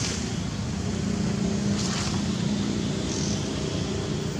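A steady low motor hum, with a couple of faint, short high-pitched sounds about two and three seconds in.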